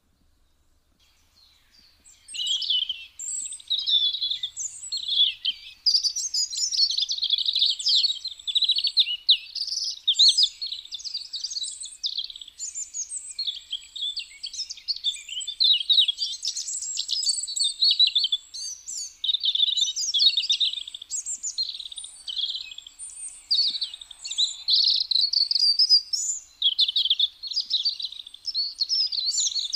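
European robin singing: a long run of varied, high warbling and trilling phrases separated by short pauses, beginning about two seconds in.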